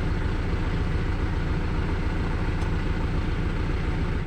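Car engine idling steadily with an even low rumble.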